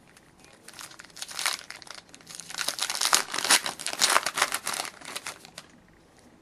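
Plastic wrapper of a trading card pack crinkling as it is torn open and handled, in a run of dense crackles that swells in the middle and stops shortly before the end.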